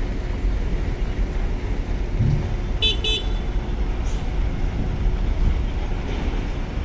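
Steady low rumble of engines at a ferry loading pier, with two quick high toots of a vehicle horn about three seconds in.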